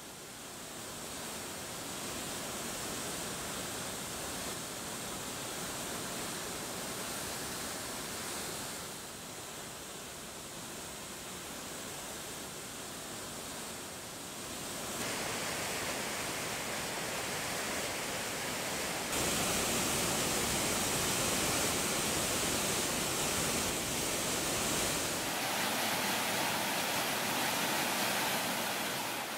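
Steady rushing of white water from snow-fed mountain waterfalls. Its loudness and tone shift abruptly several times, and it is loudest in the second half.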